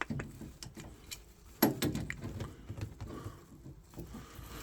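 Scattered light clicks and taps from tools and boiler parts being handled, with one louder knock about a second and a half in.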